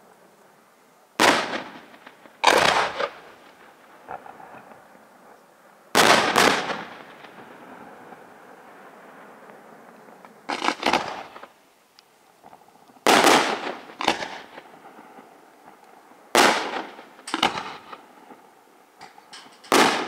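Aerial firework shells bursting in a display: about ten loud bangs at irregular intervals, some in quick pairs, each trailing off briefly.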